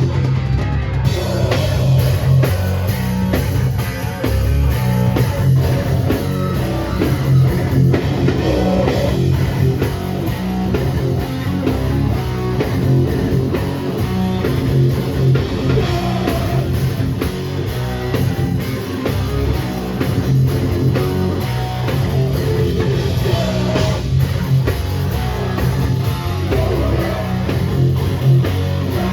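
Hardcore band playing live, loud and without a break: heavily distorted guitars, bass and a pounding drum kit.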